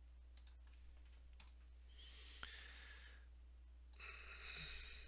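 Near silence over a low steady hum, with a few faint clicks of computer keys in the first second and a half and two soft breathy noises, one about two seconds in and one about four seconds in.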